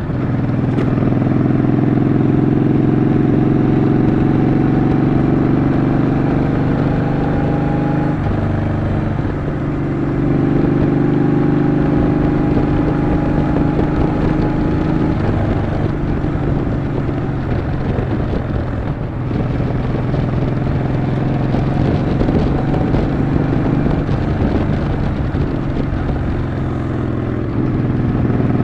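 Yamaha XV950 (Bolt) V-twin engine running under way, its pitch climbing slowly, dropping about eight seconds in, climbing again, then easing to a lower steady note before picking up once more near the end.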